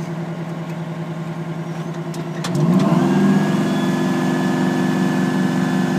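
Aerial ladder fire truck's engine running steadily, then about halfway through revving up to a higher steady speed with a steady whine joining in, as the ladder's hydraulics are worked.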